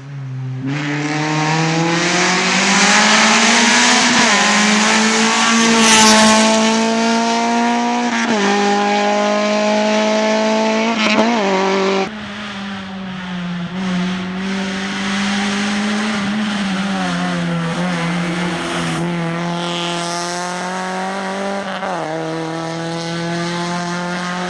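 Honda Civic rally car's engine revving hard through the gears, its pitch climbing and dropping sharply at each shift or lift several times, over heavy tyre and road noise.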